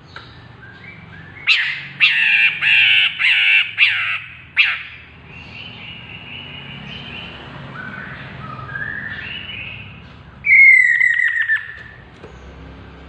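Chestnut-capped laughingthrush calling: a run of loud, harsh, rasping notes starting about a second and a half in and lasting some three seconds, softer short notes after, then a loud call falling in pitch near the end.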